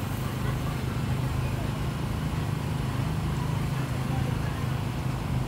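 Busy street-market ambience: a steady low motor hum under background chatter of voices.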